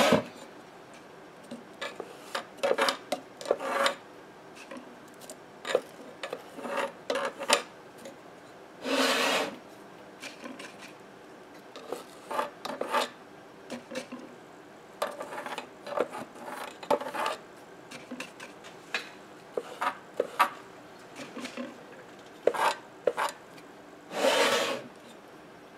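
Irregular rubbing and scraping strokes on the cardboard edge of an Audax 32 cm loudspeaker as it is scrubbed with alcohol to clear away old foam residue, with two longer, louder strokes about nine seconds in and near the end.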